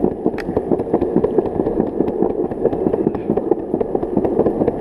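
Longboard wheels rolling fast over a concrete sidewalk: a steady rumble with frequent sharp clicks.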